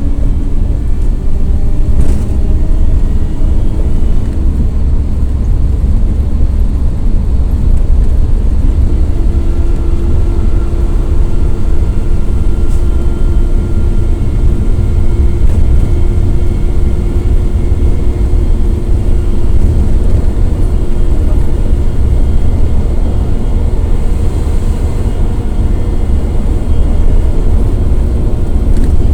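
Volare W9C ON minibus under way, its Cummins ISF 3.8 four-cylinder turbodiesel running at medium revs over a heavy low rumble. A steady whine from the differential comes in about nine seconds in and holds for some thirteen seconds.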